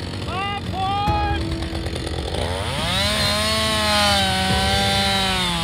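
Chainsaw blipped twice with short revs, then opened up to full throttle about two and a half seconds in and held high while cutting into the trunk of a standing tree, the pitch sagging slightly under the load near the end.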